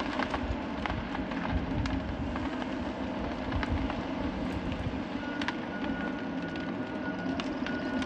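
Heavy diesel engines of a Tigercat 635H swing boom skidder and a tracked forestry machine running steadily, with scattered sharp clicks and knocks. From about five seconds in, a high steady tone sounds on and off.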